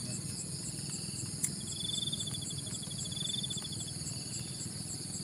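Dusk insect chorus: crickets and other insects calling in steady, high-pitched bands with regular chirps, and a faster pulsed trill starting about a second and a half in and running for about two seconds, over a low steady background noise.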